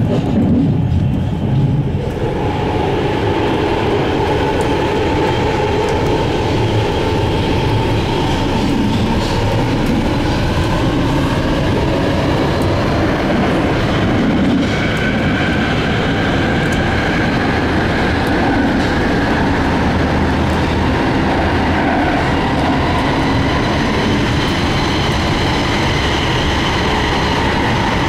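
BART train heard from inside a moving car at speed: a steady rolling rumble of wheels on rail with a high, held whine over it. About two seconds in the noise grows fuller and hissier as the train runs into a tunnel.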